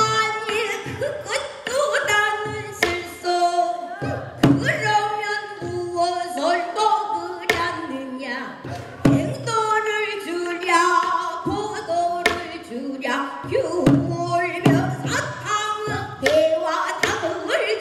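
A female pansori singer sings in the sliding, rough-voiced style of the genre, with sharp strokes of the buk barrel drum falling every few seconds under the voice.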